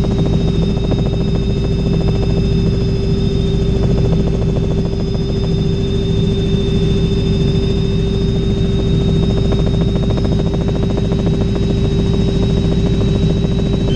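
Robinson R66 turbine helicopter in steady cruise heard from inside the cabin: a continuous low rotor thrum with a fine rapid beat under a steady high turbine whine.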